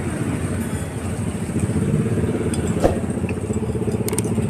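A motorcycle engine running with a steady low pulsing rumble. A single sharp click comes a little past the middle.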